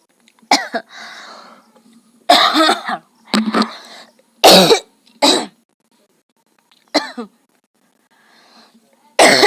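A woman coughing, forced coughs for a coughing challenge, in short harsh bursts every second or two, some single and some in quick pairs.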